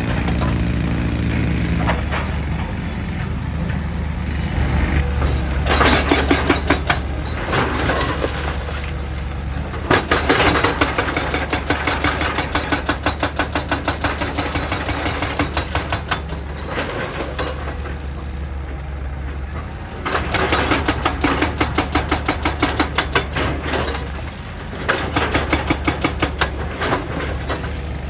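JCB excavator's hydraulic rock breaker hammering rock in several bursts of rapid, even blows lasting a few seconds each. Between the bursts the excavator's diesel engine runs steadily.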